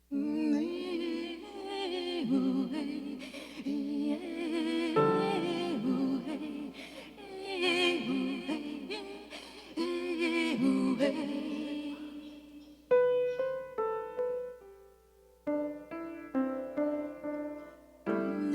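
Live improvised music: a voice singing in a wavering, operatic style over instruments for about twelve seconds. Then a sparse run of single struck notes, each starting suddenly and ringing away.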